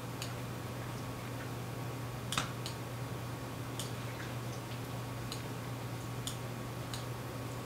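Faint, scattered clicks of a computer mouse, about ten of them at uneven intervals, while the brush tool is dragged over the model, over a steady low hum.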